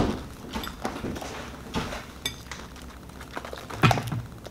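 Eating fried chicken by hand: quiet chewing with a few scattered clicks and small clinks, the sharpest about four seconds in.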